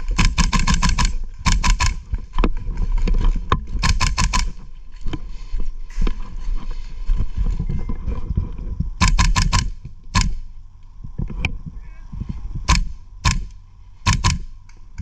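GHK M4 gas blowback airsoft rifle firing: several short rapid bursts, each a quick string of sharp clacks of the bolt cycling, then a few single shots near the end, over low rumbling handling noise.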